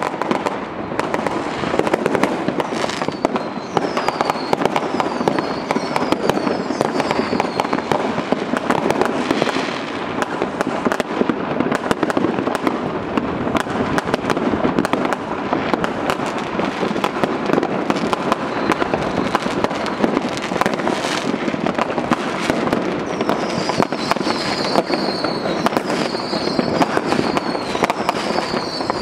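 Many fireworks and firecrackers going off at once across a town: a continuous, overlapping barrage of bangs and crackling. A run of short falling whistles comes a few seconds in, and another near the end.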